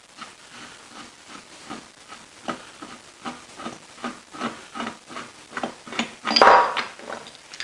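Light metal clicks about two or three times a second as the bed clamp's bolts are worked loose on the cast-iron lathe tailstock, then a louder metallic clatter about six seconds in as the clamp parts are handled.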